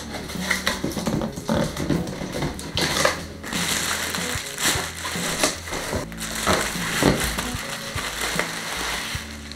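Bubble wrap crinkling and rustling under hands in a cardboard box, in irregular sharp crackles, with background music.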